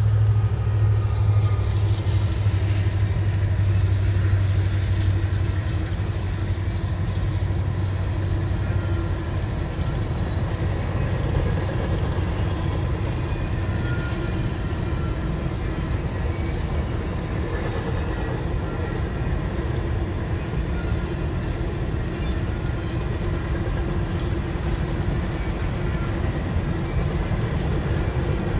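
Freight train passing: a diesel-electric locomotive's deep engine drone for about the first nine seconds, fading as it moves off, then the steady rumble of a long string of coal cars rolling by on the rails.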